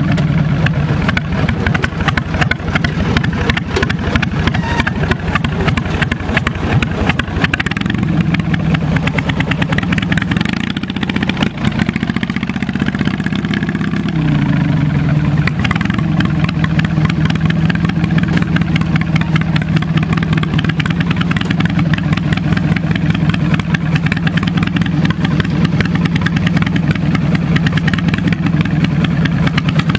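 Twin-cylinder engine of a 1983 Yardman MTD garden tractor running steadily as the tractor drives along. The engine note sags around eleven seconds in and picks back up about fourteen seconds in, then holds steady.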